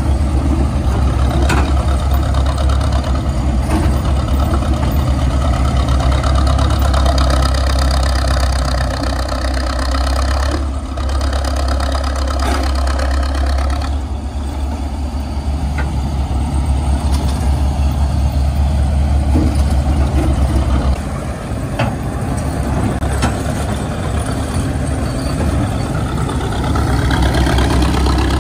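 Engine of a vintage cable-operated crawler power shovel running steadily as the machine digs and swings a dipper of dirt, with occasional short clanks from its machinery. The engine's deep hum eases off about two-thirds of the way through.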